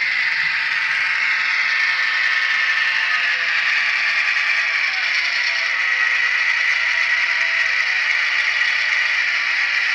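The onboard sound system of a Broadway Limited Imports Paragon N scale SW7 diesel switcher plays a running diesel engine. It comes thin and without bass from the model's tiny speaker, and its pitch shifts slightly a few seconds in.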